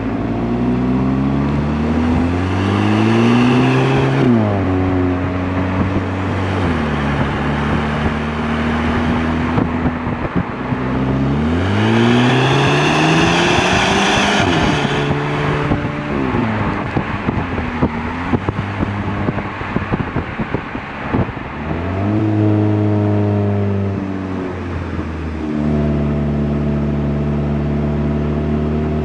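Cupra Formentor VZ's 2.0-litre turbocharged four-cylinder on its factory exhaust, revved three times and dropping back to a steady idle in between. The middle rev climbs highest, and there are a few sharp clicks after it.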